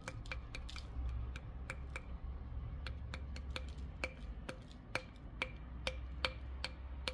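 Light, quick taps, about three a second, each with a short ringing tone, over a low steady hum: a container or tool being tapped to knock fine gold powder out onto a scale.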